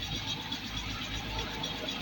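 Motorcycle engine running steadily at idle.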